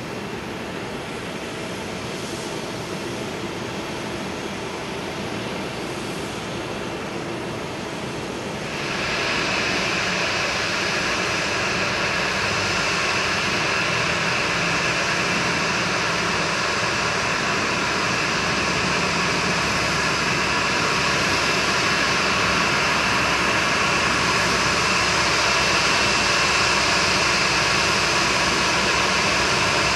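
Boeing 737-800's CFM56-7B turbofan engines running at taxi power, a steady jet hum with a high whine. The sound jumps louder and brighter about nine seconds in, and the whine is stronger from then on.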